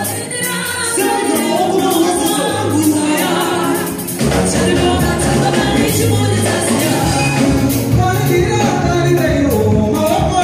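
Live gospel band: a male vocalist sings into a handheld microphone over drum kit and keyboard. After a brief dip about four seconds in, the band comes back fuller, with a stronger low end.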